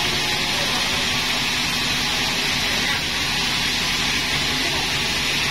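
Sawmill machinery running steadily: a low engine drone under a constant high hiss, with no break or change.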